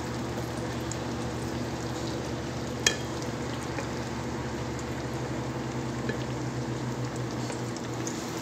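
Eggplant slices sizzling as they fry in bubbling hot oil in a pan, with a steady low hum underneath. One sharp metallic clink about three seconds in.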